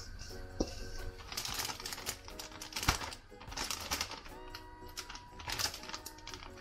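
Plastic zip-top bag of marinated chicken crinkling and crackling as it is handled and its seal pressed shut, in irregular clicks and rustling bursts, over background music.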